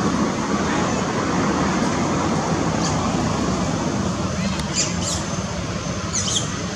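Steady wash of background noise, with a few short, high-pitched squeaks about three, five and six seconds in.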